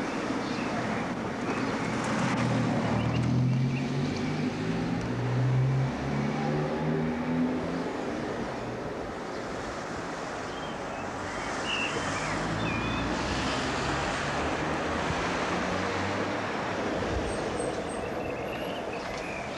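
Street traffic: a motor vehicle's engine passes in the first several seconds, its pitch stepping upward, over a steady rush of road and wind noise.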